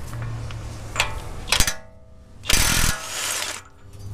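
Cordless DeWalt impact wrench breaking loose and spinning off a truck's 35 mm front axle nut. A short, loud burst of hammering comes about two and a half seconds in, then a lighter run.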